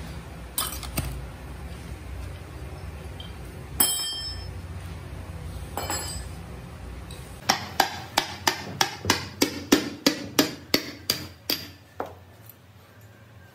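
Hammer striking metal: a few scattered knocks, then a quick run of about seventeen ringing strikes, about four a second, over some four seconds.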